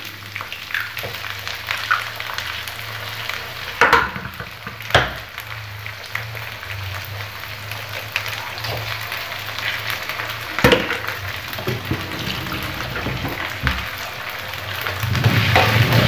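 Cabbage and eggs sizzling in a hot oiled wok, with a few sharp knocks as eggs are cracked on the wok, about 4, 5 and 11 seconds in. The sizzling grows louder near the end.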